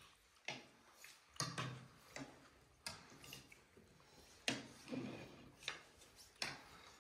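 Scattered soft clicks and taps of people eating at a table: spoons and fingers against plates and bowls, about eight irregular ticks.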